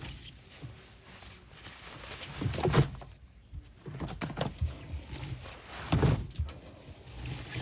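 Water gurgling and splashing in a twin-tub washing machine, coming in uneven surges with two louder gushes, about three seconds in and near six seconds.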